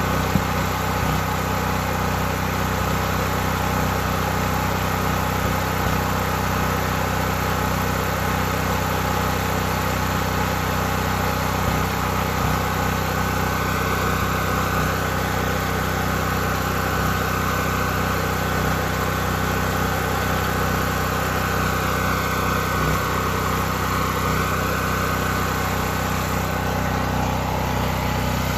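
Westinghouse WGen5300 portable generator's single-cylinder engine running steadily at a constant speed on its first run.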